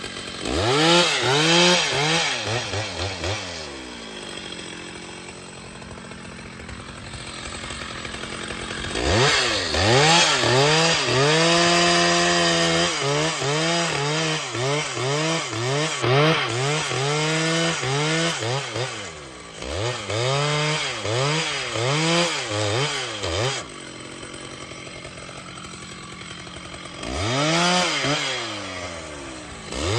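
Chainsaw engine revving up and down over and over. It is held at high revs for a few seconds about a third of the way in, then blipped in quick succession, and drops back toward idle in between.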